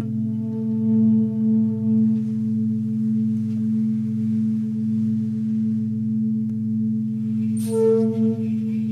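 Meditation music: a steady, slowly pulsing drone of low tones from singing bowls, with a small bell struck once near the end and left ringing.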